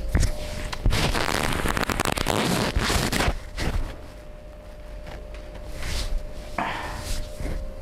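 Hands rubbing over skin and clothing rustling during a massage: a loud, dense scraping for about three seconds, then quieter rustles and one short scrape near the end.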